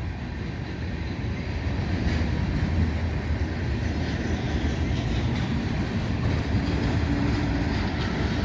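Freight train of gondola cars rolling past, a steady noise of steel wheels on rail, mixed with the hum of highway traffic.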